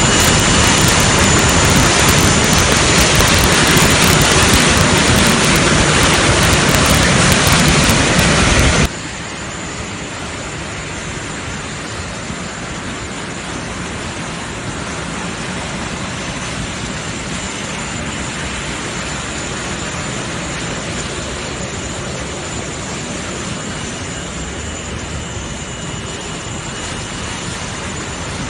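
Steady roar of jet airliner turbines running, with a faint high whine over it. The roar drops sharply about nine seconds in and then carries on at a lower level.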